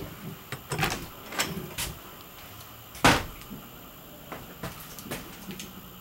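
Clicks and knocks from a travel trailer's interior door being handled and opened, with a sharp knock about three seconds in.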